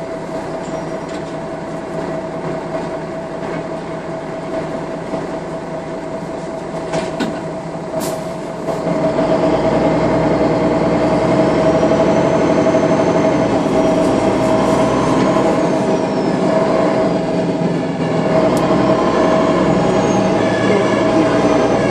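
A MAN NL 313 city bus heard from inside. Its diesel runs with a steady hum and whine while it stands. About nine seconds in it pulls away and gets louder, with a high whine that rises and falls as it gathers speed.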